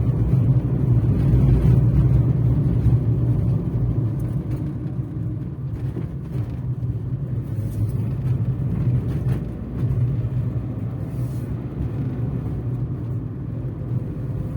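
A car driving along a road: a steady low engine and road rumble, easing off slightly a few seconds in.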